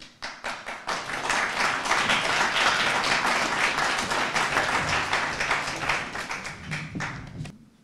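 An audience applauding: scattered claps that quickly build into steady applause, which dies away near the end.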